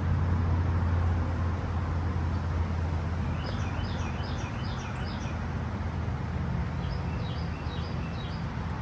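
A bird chirping a quick run of short notes twice, about three seconds in and again about seven seconds in, over a steady low rumble of traffic.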